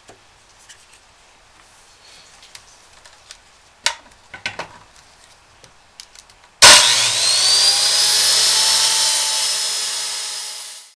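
Light clicks and a few knocks from handling a saw and clamp on a wooden jig. About two-thirds of the way in, a corded circular saw starts suddenly, its whine rising as the motor spins up, then runs steadily for about four seconds and cuts off just before the end.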